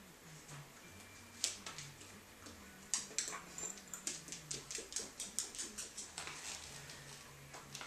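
Dog's claws clicking on a hardwood floor as it moves about and sniffs among scent articles: a few taps, then a quick irregular run of clicks from about three seconds in.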